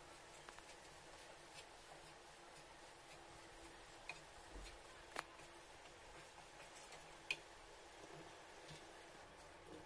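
Faint stirring of thick chana dal paste with a wooden spatula in a nonstick pan: soft scrapes and light taps, with two sharper ticks about five and seven seconds in.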